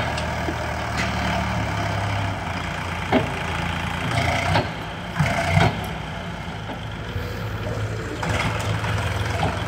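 Sonalika DI 50 tractor's diesel engine running at low revs while the tractor creeps forward with its tipper trailer raised to dump soil. The engine note swells and eases slightly. A few sharp knocks come near the middle.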